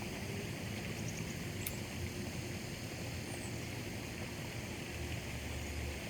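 Steady outdoor background noise with a low hum and a few faint short high chirps.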